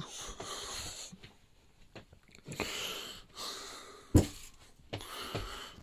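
A person breathing heavily in and out close to the microphone, about five breaths, with a sharp knock about four seconds in.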